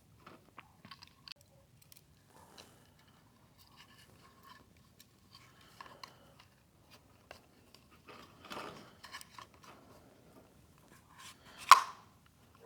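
A gauge being pressed into a 3D-printed plastic gauge pod: scattered small plastic clicks and scrapes, a rougher rubbing stretch a little past the middle, and one sharp loud snap near the end.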